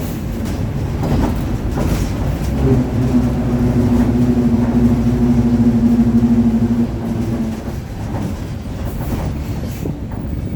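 Mercedes-Benz OF-1721 bus's rear differential growling under way: a steady whining tone rises out of the engine and road rumble about three seconds in, holds for about five seconds and fades. A few short knocks and rattles sound over it.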